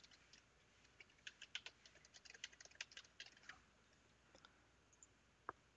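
Faint computer keyboard typing: a quick run of keystrokes lasting about two and a half seconds, then a single click near the end.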